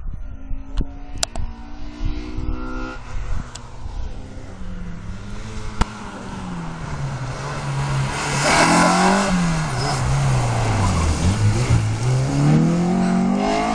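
A rally car's engine approaches and slows for a turn, its pitch falling to a low point, with a loud rush of tyre noise. It then revs up again as the car accelerates away through the corner.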